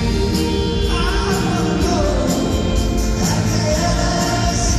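Live band playing a rock song, with a man singing lead over guitars, piano, violins and a steady drum beat, heard from the audience in an arena.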